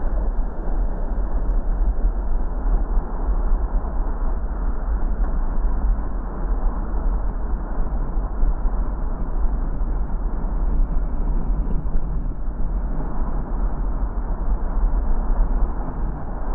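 Car driving: steady road and engine noise with a strong low rumble.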